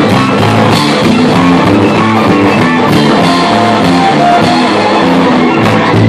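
Live rock band playing loudly: violin bowed over electric bass, electric guitar and drum kit, with a repeating bass line.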